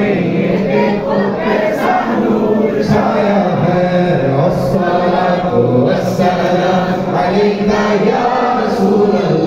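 Congregation of men singing a devotional Urdu naat together in unison, many voices blending like a choir.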